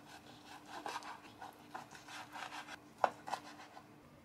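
Chef's knife sawing through a cooked cutlet on a wooden cutting board, a rasping stroke about three times a second. A little after three seconds in come two sharp knocks.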